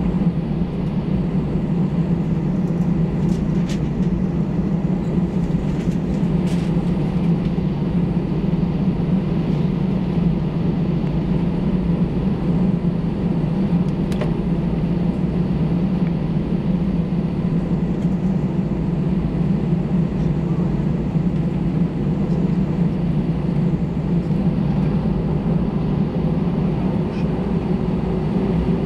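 Airbus A319-100 passenger cabin during takeoff and climb: a steady, loud engine and airflow roar that stays low and even, with a few faint clicks from the cabin.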